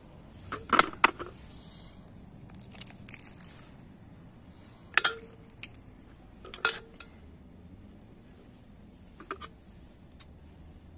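About half a dozen sharp clinks and knocks of kitchenware as eggs are separated: a small ceramic bowl and eggshell knocking against a metal pan. A couple of the clinks ring briefly.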